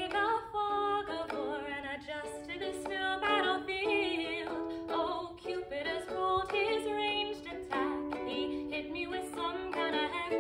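A woman singing to her own strummed ukulele accompaniment, a steady run of chords under the melody.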